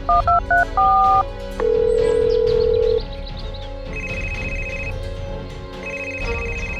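Telephone keypad tones as a number is dialed: a quick run of two-note beeps, then a steady tone for about a second and a half. Then a phone rings in two short trilling bursts, over background music.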